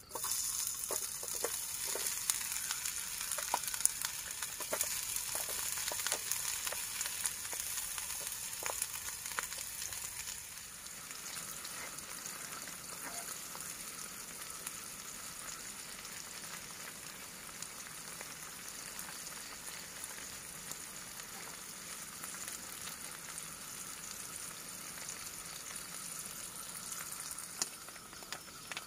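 Diced tempeh frying in hot oil in a small camping pot on a portable gas stove: a steady sizzle that starts abruptly as food goes into the oil. For about the first ten seconds there are scattered taps and scrapes of a wooden spatula stirring, and the sizzle is louder; after that it settles to an even, slightly quieter sizzle.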